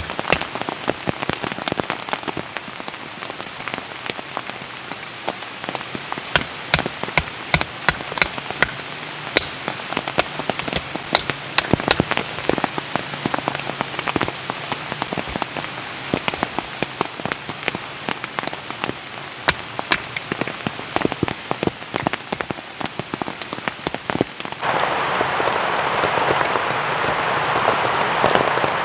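Steady rain with many individual drops striking a surface in sharp taps. About 25 seconds in, a louder, denser rushing hiss comes in suddenly and stops just before the end.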